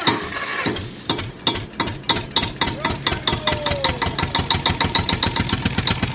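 Diesel tractor engine chugging, its beat quickening about a second in and settling into a steady rapid run.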